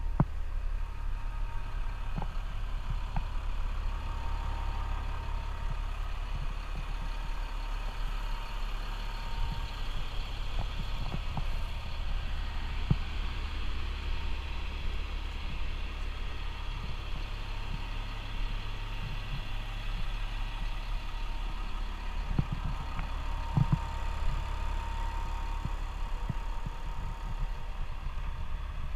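Caterpillar 950H wheel loader's diesel engine idling steadily, a low rumble with a hum over it and a few light clicks here and there.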